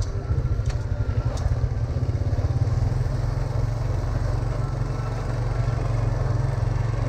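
Street traffic with motorbike engines under a steady low rumble.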